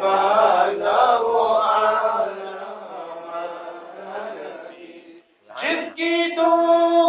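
A group of men reciting an Urdu naat in unison without instruments, with long, drawn-out sung notes. One phrase fades out about five seconds in, and after a brief pause the next phrase begins.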